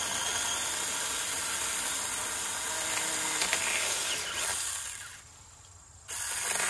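SAKER 4-inch battery mini chainsaw running and cutting through a branch about three inches thick, close to its 4-inch maximum. It winds down about five seconds in and starts up again about a second later.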